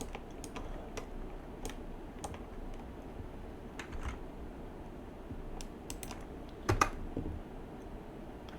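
Computer keyboard keys pressed one at a time at irregular intervals as Blender shortcuts are entered, with a louder double click about seven seconds in.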